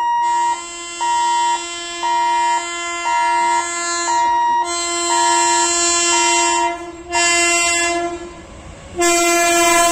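Electric locomotive's two-tone horn sounding as the train approaches: the low note is held almost throughout while the high note comes in short blasts about once a second. Both stop briefly near the end, then start again together.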